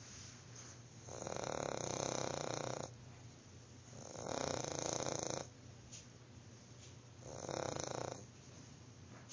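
A dog snoring in its sleep: three snores about three seconds apart, the last one shorter.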